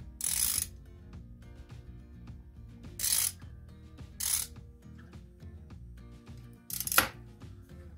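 Socket ratchet clicking in four short bursts, the loudest near the end, as it turns a Yamaha XJ750 engine's crankshaft round to line the timing mark up with the pointer. Soft background music plays underneath.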